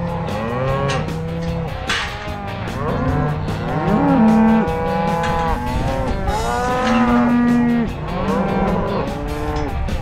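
A herd of penned cattle mooing and bawling, many calls overlapping, each rising and falling in pitch.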